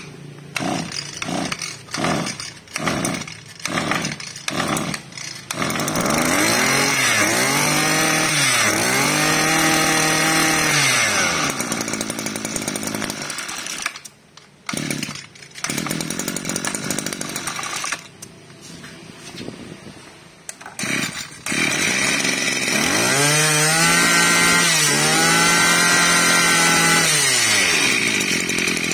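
Small two-stroke brush cutter engines pull-started on their recoil starters: a quick series of pulls before one catches, then it is revved up and down twice. After a pause another is pulled until it starts and is likewise revved up and down twice. They are slow to catch on the pull.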